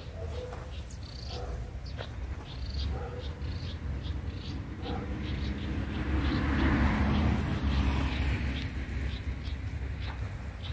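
Wind buffeting the microphone as a low, uneven rumble, with faint short high chirps repeating about twice a second. A swell of rustling noise comes about two-thirds of the way through.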